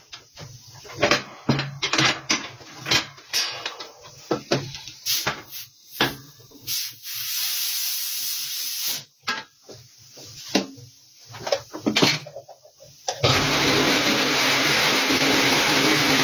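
Scattered metal clanks and knocks as a tire is set on a pneumatic tire spreader, with a few seconds of compressed-air hiss midway. About 13 seconds in, a pneumatic tire buffer with a rasp wheel starts and runs steadily, ready to rasp the inside of the tire around the sidewall break.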